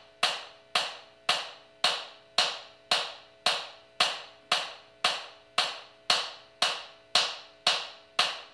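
Metronome click from a play-along track at 110 beats per minute: a steady wood-block-like tick about twice a second, every stroke at the same level with a short ring, over a faint steady hum.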